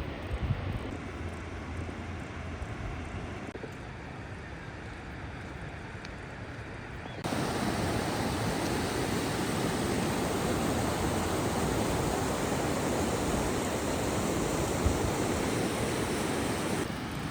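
A steady low rumble, then, about seven seconds in, a sudden cut to the louder, even rush of the Toce waterfall's falling water, which drops away near the end.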